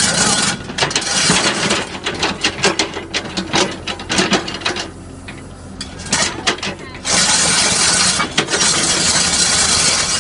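Excavator engine running under load with a rapid, irregular series of metallic clanks and knocks, then about seven seconds in a loud steady rushing noise that stops near the end.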